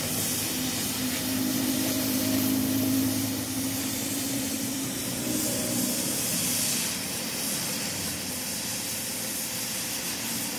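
Oxy-fuel cutting torch hissing steadily as it cuts through the steel spindle of a truck axle housing. A low steady hum runs underneath for the first several seconds.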